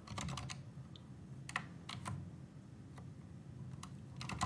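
Typing on a computer keyboard while editing a line of text. A quick run of keystrokes comes at the start, a few single taps follow through the middle, and another short run comes near the end.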